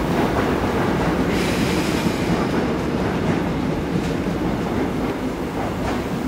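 Korail electric commuter train rolling slowly into a station platform, with a steady low rumble of wheels on rails. About a second and a half in there is a brief high-pitched squeal as it brakes.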